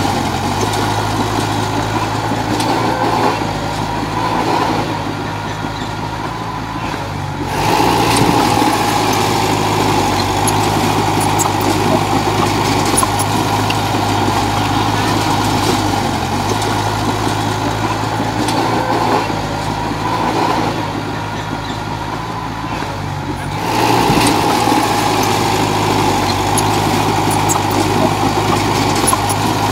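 Komatsu D31J crawler dozer's diesel engine running steadily, growing louder twice: about seven and a half seconds in and again about twenty-four seconds in.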